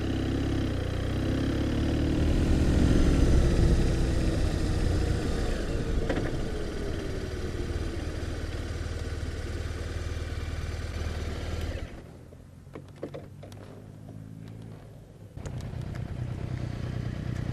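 A BMW R1200RT's boxer-twin engine pulls in first gear out of a tight hairpin, rising in pitch and then easing off as the bike rolls to a stop. The engine sound cuts out about twelve seconds in, leaving a quieter spell with a few clicks, and motorcycle engine noise comes back near the end.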